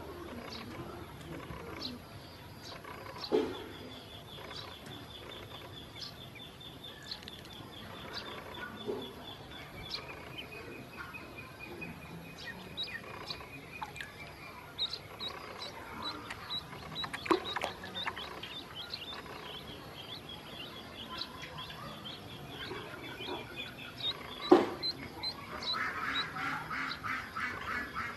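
Ducklings peeping: many short high-pitched calls, some in quick runs, with a louder dense run of calls near the end. A few sharp knocks stand out, the loudest about 24 seconds in.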